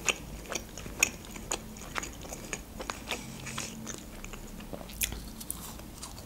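Close-miked chewing of grilled shashlik meat: soft wet mouth clicks and smacks about twice a second, with a slightly louder one about five seconds in.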